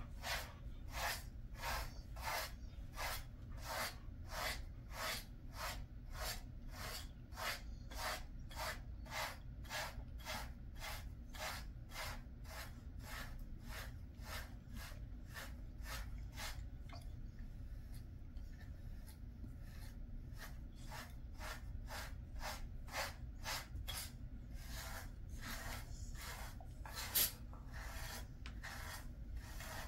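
Pet grooming brush raked through a Jindo dog's coat in quick repeated strokes, about two to three a second, easing off briefly a little past the middle. A single sharper click comes near the end.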